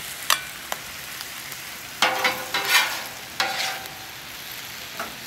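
Sliced beef in a reduced teriyaki glaze sizzling on a flat top griddle, with a metal spatula scraping across the griddle and clicking against a bowl as the meat is scooped up. Two short clicks come in the first second, then louder scrapes about two and three and a half seconds in.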